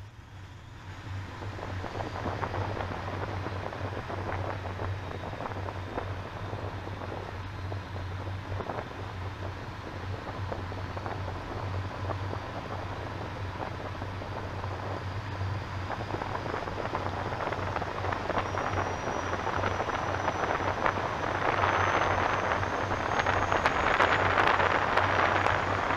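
Wind and road noise from a moving car picked up by an outside-mounted camera, a steady hiss over a low hum, growing louder about twenty seconds in as the car speeds up. A faint high whine rises slowly in pitch over the second half.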